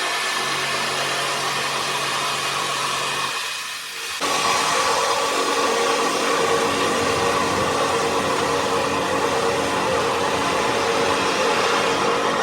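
Heavy machinery running steadily, a loud mechanical noise with a steady hum in it. It dips briefly and then jumps back louder about four seconds in.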